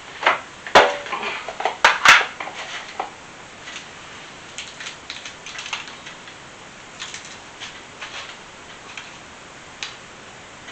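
Kitchen clatter of dishes and utensils being handled: a few sharp knocks and clanks in the first two seconds, then lighter, irregular taps and clinks.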